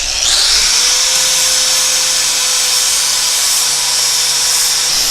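Handheld power grinder running steadily against steel, cleaning up the tow hook mount to prepare it for welding; it winds up in pitch over about the first second.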